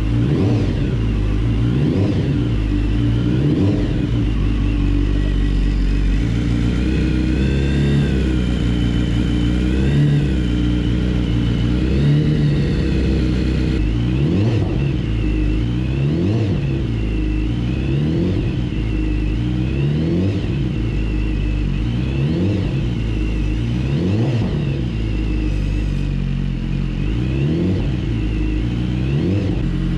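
2016 BMW S1000RR's inline-four engine running at idle while it warms up, freshly installed after an engine swap. The pitch wavers slightly up and down.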